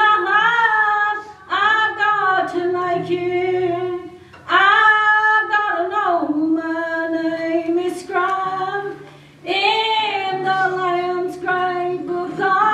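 A woman singing a slow song solo in phrases a few seconds long, with short breaks between lines, over a quiet strummed acoustic guitar.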